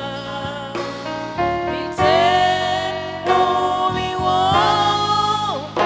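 Live gospel worship music: a voice sings over instrumental accompaniment, holding a long wavering note from about two seconds in that falls away near the end.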